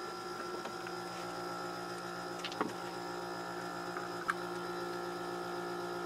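Dehumidifier compressor running with a steady electrical hum, while the blower fan, which should be spinning, stays still. A couple of faint clicks, about two and a half and four seconds in, come from its wiring being handled.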